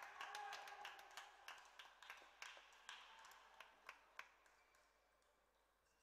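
Scattered hand clapping from a small audience, thinning out and fading away over about four seconds, with a few faint voices under it at the start.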